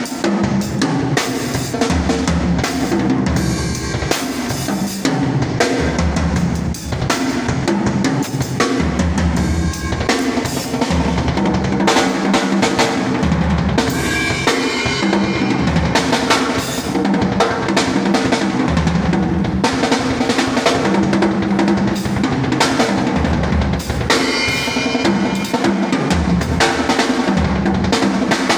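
A drum kit played continuously as a sound check: a steady run of kick drum, snare and cymbal hits, with fills and rolls.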